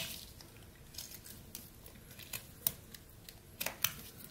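Pocket knife blade slicing chips from a piece of pine: a handful of short, sharp snicks at irregular intervals as each cut goes through.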